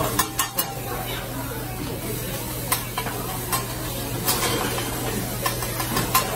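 Fried rice sizzling on a steel hibachi flat-top griddle while a chef's metal spatulas scrape along it and clack against the steel, with sharp strikes scattered through, three in quick succession near the start. A steady low hum runs underneath.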